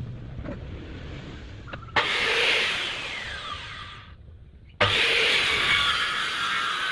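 DongCheng DMY02-185SH circular saw running and cutting wood: it comes in suddenly and loud about two seconds in, fades with a falling pitch, then starts loud again about five seconds in and runs steadily.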